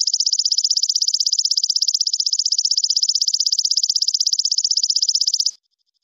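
Belalang kecek (walang kecek) insect calling: a loud, high-pitched, rapidly pulsing trill that cuts off suddenly about five and a half seconds in.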